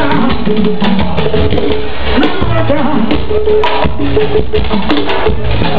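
Loud live band music over a PA system, with a steady percussion beat and a shifting melody line.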